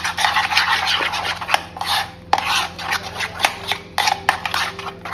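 A hand mixing a thick marinade of roasted gram flour and hung curd in a bowl: repeated wet rubbing and squishing strokes, with a few sharp ticks.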